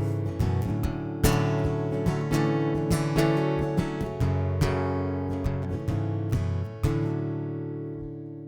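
Acoustic guitar strumming the song's closing bars, then a final chord struck about seven seconds in that rings out and fades away.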